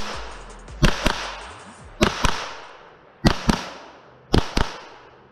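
Gunshots fired in quick double taps, the two shots of each pair about a quarter second apart and the pairs about a second apart, four full pairs after a single shot right at the start. Each pair is followed by a decaying echo.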